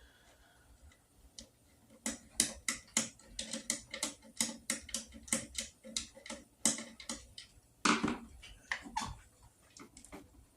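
Hand screwdriver clicking as screws are worked out of a Kirby vacuum's metal housing: a run of sharp clicks, a few a second, starting about two seconds in and stopping near the end.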